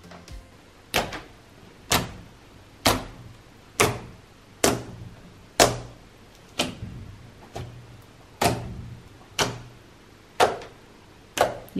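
Fingertips pressing repeatedly into a blob of pale blue slime, each press giving a sharp, short squishy pop as trapped air is squeezed out, about once a second.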